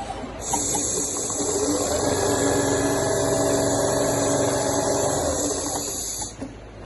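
CNC leather sewing machine running: a steady motor whine over a loud hiss that starts suddenly about half a second in and cuts off suddenly near the end.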